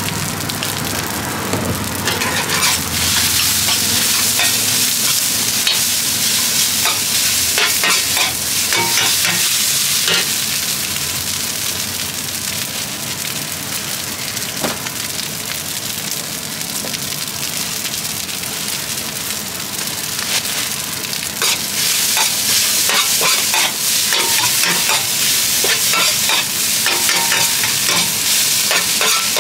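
Fried rice with cabbage and greens sizzling in a large shallow steel wok on a portable gas burner. A metal spatula scrapes and clicks against the pan as the rice is stir-fried. The sizzle is louder for the first third and the last third.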